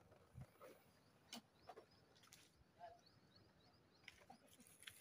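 Near silence, with a few faint scattered clicks and a faint run of short high chirps through the middle.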